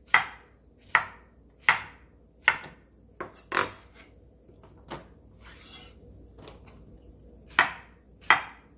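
Chef's knife chopping Korean round squash into thick pieces on a wooden cutting board, one sharp strike about every three-quarters of a second. The strikes stop for about three seconds in the middle, with a little soft scraping as the squash is handled, then two more chops come near the end.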